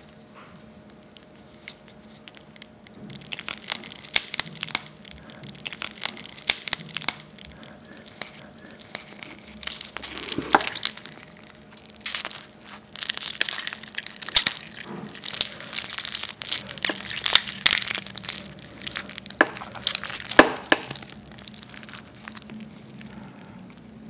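Raw marinated crab shells and legs being cracked and torn apart by hand, in many quick sharp cracks and wet crunching. It starts a few seconds in and eases off near the end.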